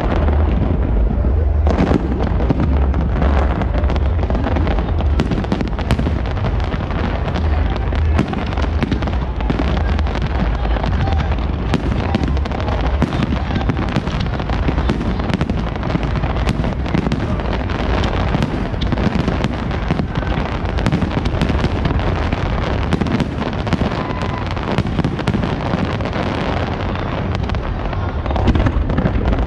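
Fireworks display barrage: a dense, continuous rapid crackle of bursts and bangs over a deep booming rumble.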